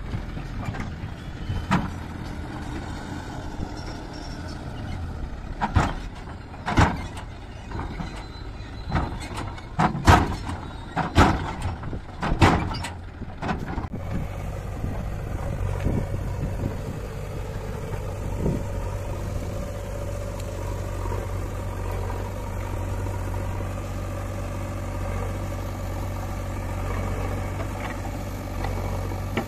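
Diesel tractor running while its tipping trolley dumps soil, with a series of sharp knocks. About halfway through, the sound switches to the steady low hum of a JCB 3DX backhoe loader and a Massey Ferguson tractor running as the backhoe loads soil into the trolley.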